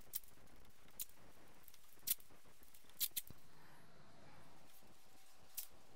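Masking tape and plastic sheeting being cut and torn while masking a car's engine bay: six short, crisp snips, irregularly spaced, two of them close together about three seconds in.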